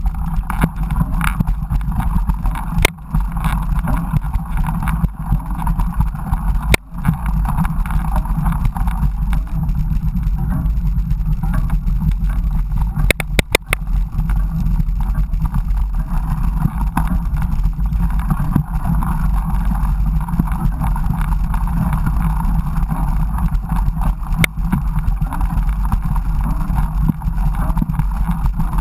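Mountain bike riding a dirt trail, recorded on a GoPro: a steady rumble of tyres and rattling bike, with a few sharp knocks and a quick burst of them about halfway through.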